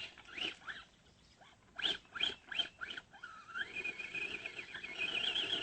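Electric motor of an Axial AX10 radio-controlled rock crawler whining in several short throttle blips, then running steadily with a wavering high whine from about three and a half seconds in.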